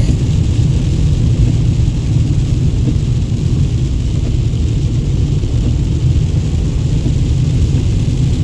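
Steady road rumble and hiss inside a moving car's cabin, driving on a wet road in heavy rain. The noise is loud because a broken window regulator has left a window stuck with a gap, so wind blows into the cabin.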